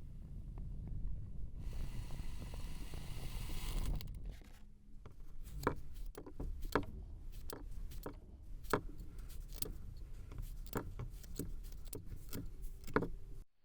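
Kinetic sand being cut: a couple of seconds of soft, even scraping, then a run of about a dozen crisp, separate cuts spaced irregularly, over a low handling rumble.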